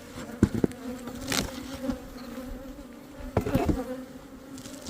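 Honeybees buzzing steadily in a swarm around an open hive, a low even hum. A few short knocks cut through it, the sharpest about a second and a half in and a quick cluster around three and a half seconds.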